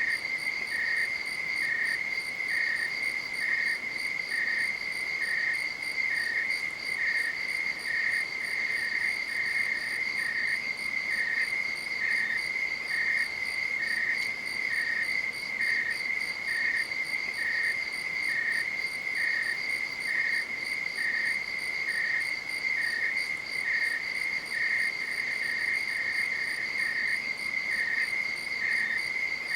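Crickets chirping: a continuous high, finely pulsing trill, with a second, slightly lower-pitched chirp repeating about twice a second.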